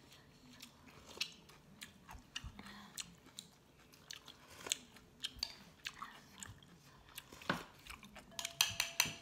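A person chewing food close by, with light clicks of chopsticks and spoons against bowls scattered throughout; a quick run of sharper clicks comes near the end.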